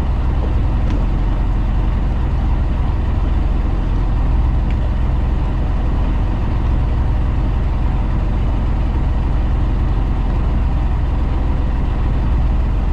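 Fishing boat's engine running steadily: a constant low rumble with a hiss over it and no change through the stretch.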